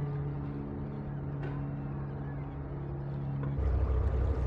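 Ship engines droning: a steady low hum, then about three and a half seconds in a sudden change to a louder, deeper, pulsing rumble.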